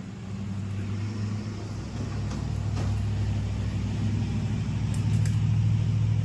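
A steady low machine hum that grows gradually louder.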